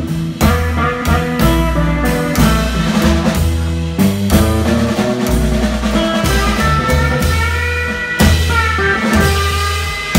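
Live blues band playing: picked guitar lines over walking upright double bass notes and a steady drum beat.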